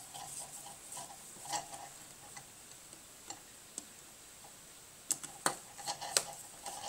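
Faint scattered clicks and scrapes of a screwdriver on the small brass terminal screws of a three-prong plug, with a few sharper clicks in the second half; the screws are not catching their threads.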